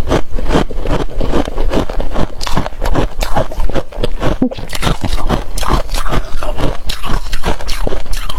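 Close-miked freezer frost being crunched and scraped: a quick, irregular run of crisp crunches that keeps going without a pause.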